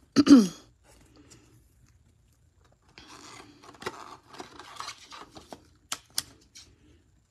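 A trading card is slid into a rigid clear plastic top loader and the plastic is handled: soft scraping rustles with several sharp plastic clicks, starting about three seconds in.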